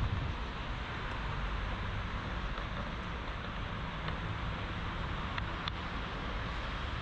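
Steady outdoor city background: an even hiss of road traffic with a low rumble underneath and a few faint ticks.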